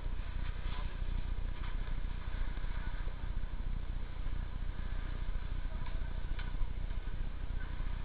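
Steady low rumble of a vehicle engine running, with a few faint clicks and knocks.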